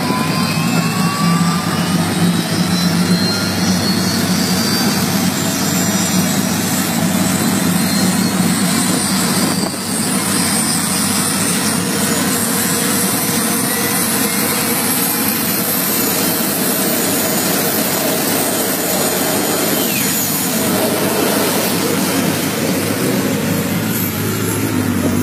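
Gas turbine engine of an MTT Y2K turbine superbike, a Rolls-Royce Allison 250 helicopter turboshaft, running with the bike held stationary. A whine rises in pitch over the first couple of seconds as it spools up, then it settles into a steady, loud jet-like rush.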